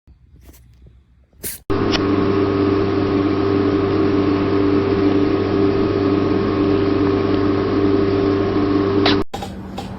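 Two short faint cat sneezes. Then a loud, steady machine hum with several steady tones starts suddenly and cuts off suddenly near the end.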